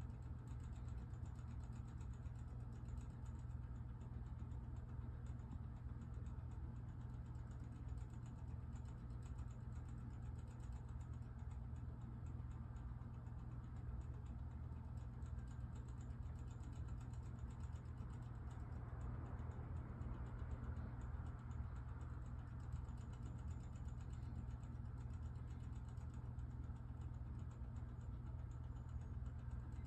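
Battery wall clock's movement ticking rapidly as it drives the hands forward while the clock sets itself, with faint, fast, even ticks. A steady low hum lies underneath.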